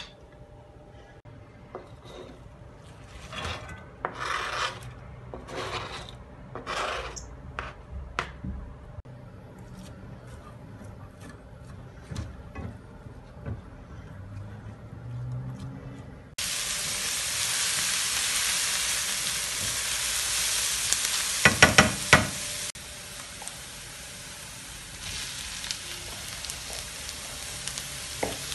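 Wooden spoon stirring chopped onions in olive oil in a frying pan, in separate scraping strokes. About halfway through a steady frying sizzle starts suddenly, with a few sharp taps a little later, then goes on at a lower level.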